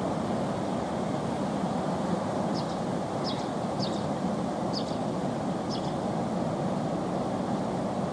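Steady rush of white water pouring out of the weir arches into the river. Five faint high chirps come about once a second, starting a few seconds in.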